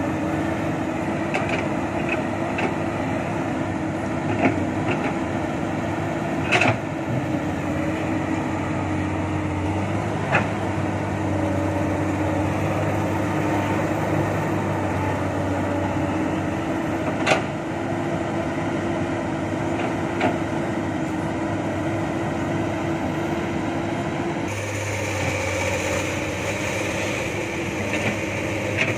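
Komatsu PC200 hydraulic excavator's diesel engine running steadily while it digs and loads soil, with a few sharp knocks from the work. Near the end the hum changes abruptly to a different steady engine sound, from dump trucks running at idle.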